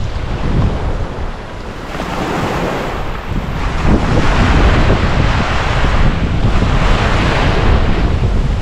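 Ocean waves breaking and washing onto a beach, with wind buffeting the microphone as a steady low rumble. A wave surges up about two seconds in and the wash stays loud after that.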